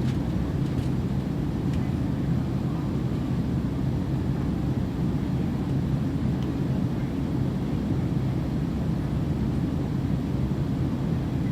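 Airplane cabin noise: a steady low rumble of engines and airflow heard from inside the cabin, even in level throughout.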